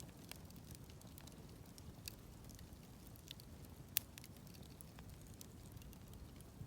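Wood campfire crackling quietly, with scattered small pops and one sharper pop about four seconds in, over a faint low rumble.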